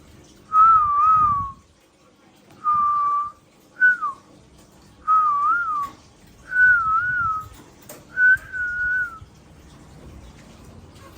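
A series of six short whistles, each held near one pitch and wavering up and down; the third is a quick falling note.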